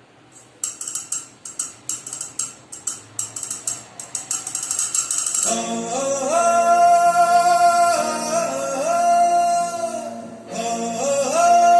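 A recorded song played through the 24-volt lorry amplifier under test. It opens with quick rhythmic percussion strikes, and about halfway in a long held sung note glides up, breaks off briefly near the end, then comes back.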